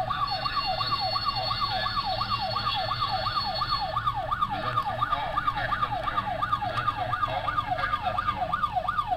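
A siren-like electronic wail that falls in pitch over and over, about three times a second, without a break, over a low steady hum.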